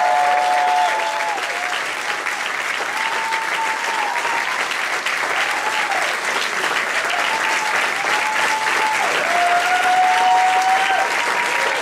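A crowd applaudes steadily, with drawn-out cheers and whoops from voices rising above the clapping.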